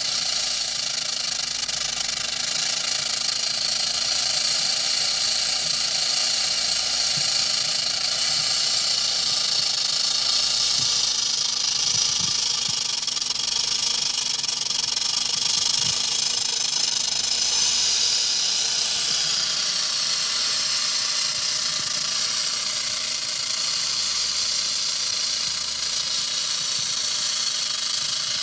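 Rattlesnake rattling its tail: a steady, high buzz that keeps on without a break.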